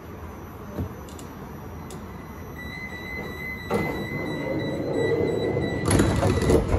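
Metro train door-closing warning: a steady high beep sounds for about three seconds, and then the train's sliding door closes with a loud burst of noise near the end.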